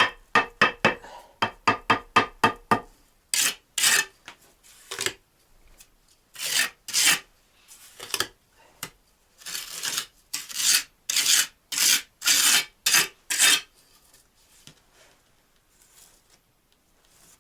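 Trowel scraping and spreading cement mortar on bricks during bricklaying. About a dozen quick short scrapes come in the first three seconds, then slower separate scrapes, which stop a few seconds before the end.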